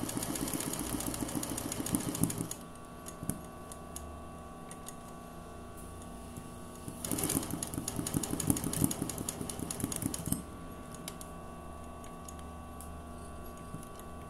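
Sewing machine stitching free-motion embroidery through fabric held in a hoop, in two bursts of rapid, even needle strokes: one at the start lasting about two and a half seconds, another from about seven seconds in lasting about three and a half seconds. A quieter low hum carries on between them.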